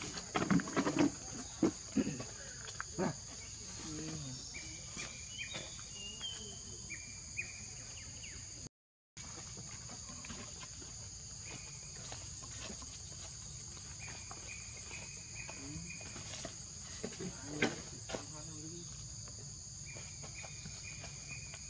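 Steady high-pitched drone of insects, with a few sharp knocks in the first three seconds and short high chirping calls scattered through.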